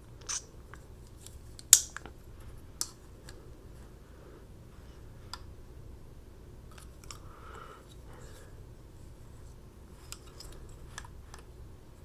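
Folding pocket knife being handled, its blade snapping with a sharp metallic click just under two seconds in, with lighter clicks just before and about a second after. Faint ticks and handling noise follow.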